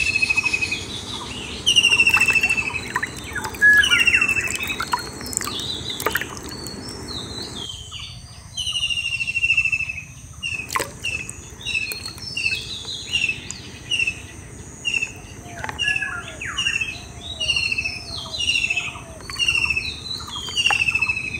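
Birds calling: one bird repeats a short falling whistled note, at first about every two seconds and then faster, about once a second, with other birds chirping around it.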